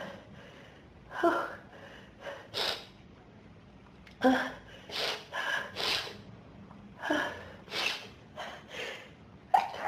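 A person in an allergic sneezing fit set off by dust, gasping and sniffing in about a dozen short catching breaths. A sneeze breaks out just before the end.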